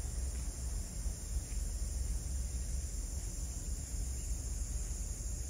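Insects chirring steadily over a low, uneven rumble.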